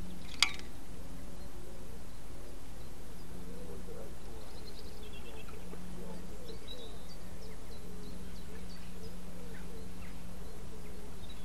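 Outdoor ambience: a steady low background rumble with faint, scattered bird chirps, and one sharp click about half a second in.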